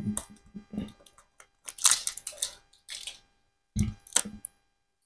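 A small plastic water bottle being handled: crackling and crinkling of the thin plastic and its cap, with a few dull knocks, the loudest about four seconds in as it meets the table.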